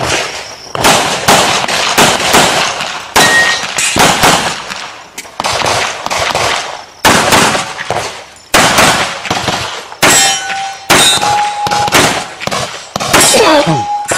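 Pistol shots fired in quick pairs and strings, with short pauses between strings, during a run of a practical-shooting stage. After a few of the later shots comes a brief metallic ringing.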